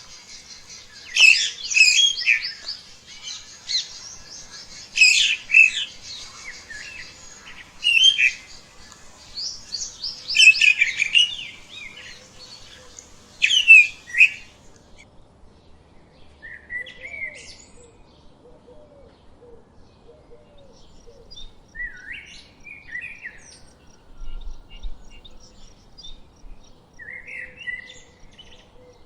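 Wild birds chirping and singing in loud clusters of quick notes for about the first half. After that, fewer and quieter chirps and calls follow.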